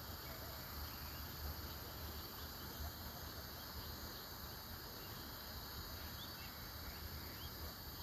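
Faint outdoor ambience: a low, uneven rumble and a steady high insect-like drone, with a few faint short chirps in the second half. No dove cooing is heard.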